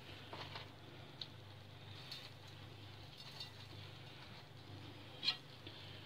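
Faint light pattering and rubbing of hands working fresh white cheese in an enamel plate, over a low steady hum, with one short knock about five seconds in.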